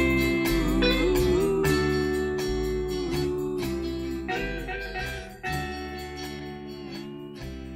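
Background music with a steady beat and a melody that slides in pitch, gradually fading out toward the end.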